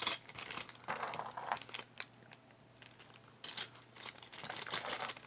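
Rustling and light clicking from small metal sweater clips being handled and turned over, in a few short bursts about a second in and again toward the end.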